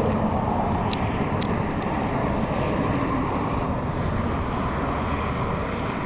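Steady rumble of road traffic on the highway bridge, with a few faint high ticks in the first couple of seconds.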